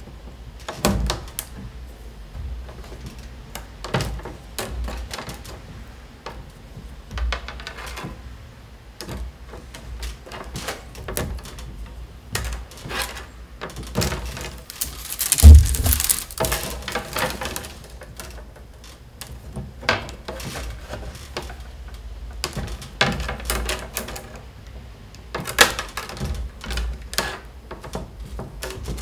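Irregular clicks and knocks as peeled willow stakes of a round basket base are pricked with an awl and bent upright to the vertical, the work being turned on a tabletop between bends. One louder thump about halfway through.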